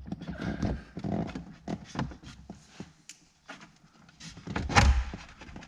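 Plastic interior trim panels being worked loose under a car's dashboard: scattered clicks, rattles and handling knocks, with a louder knock about five seconds in.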